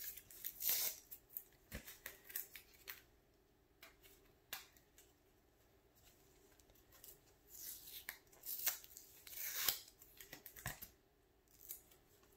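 Faint handling of card packaging: crinkling and rustling of plastic and tape with scattered small clicks, in short stretches, the fullest about a second in and around eight to ten seconds in.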